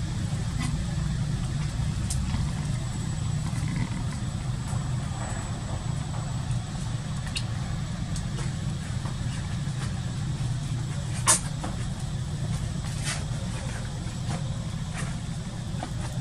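A steady low rumble, with a few faint clicks and one sharp click about eleven seconds in.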